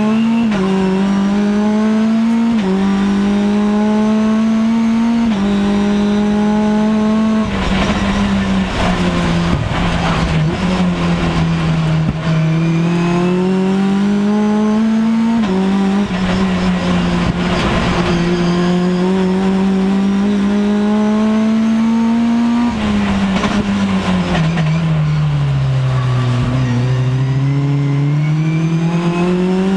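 Mitjet race car's engine heard from on board at racing speed: the pitch climbs and drops sharply with three upshifts in the first five seconds or so, falls as it slows and downshifts for corners, and climbs again out of them. Rough tyre and road noise comes through the slower cornering stretches.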